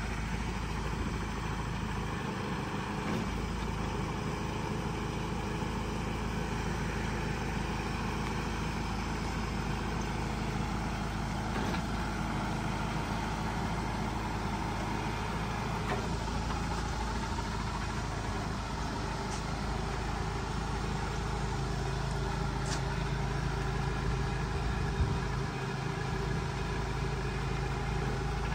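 Land Rover Defender 110's diesel engine idling steadily, running to drive the hydraulics of its truck-mounted aerial access platform while the boom moves.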